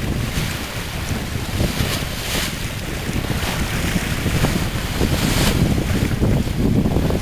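Wind buffeting the microphone in uneven gusts, a heavy low rumble over a hiss of water.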